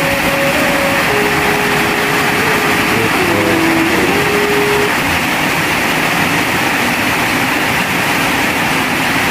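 Steady rain falling, a dense even hiss. A faint held tone that shifts in pitch is heard over it during the first half.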